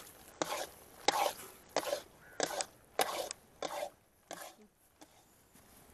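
Long metal stirrer working thick, finished halwa around a black iron kadai: about seven strokes, roughly one every two-thirds of a second, stopping about four and a half seconds in as the stirrer is lifted out.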